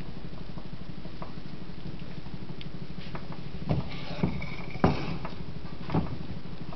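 Two-handled stainless steel pan of frying samosas moving on its own on a glass-top electric stove, knocking and rattling against the cooktop: scattered light taps, then four louder knocks in the second half, over a steady low hum.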